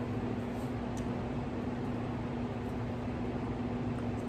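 Steady background hiss with a constant low hum, like a fan or air conditioner running, and one faint click about a second in.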